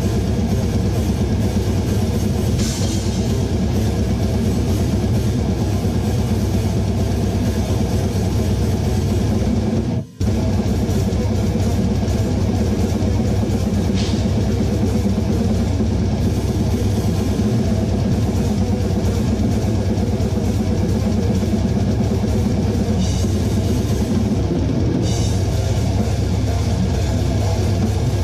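Death metal band playing together at a fast 260 BPM: drum kit with China and crash cymbals driving under distorted electric guitars, recorded raw in the room with no close mics. The whole band stops dead for a split second about ten seconds in, then comes straight back in.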